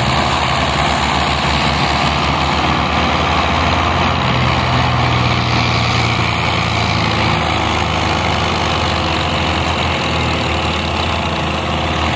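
Belarus tractors' diesel engines running hard under heavy load, a steady low drone with a rapid firing beat, as they strain to pull a stuck, fully loaded sugarcane trolley free.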